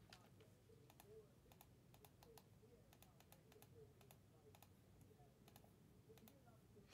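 Faint, irregular clicks and taps of a computer keyboard and mouse, several a second, over a low background hum.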